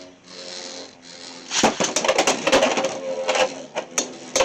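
Beyblade X spinning tops whirring in a plastic stadium, then clashing and rattling with a rapid run of sharp clicks from about a second and a half in, the hits of an attack-type battle.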